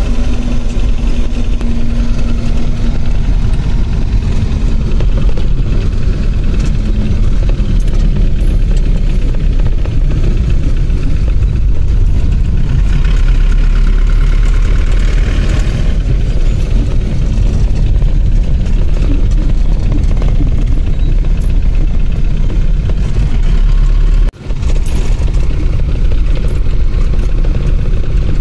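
Engine and road noise of a moving passenger vehicle heard from inside its cabin: a steady, loud, low rumble that briefly cuts out about three-quarters of the way through.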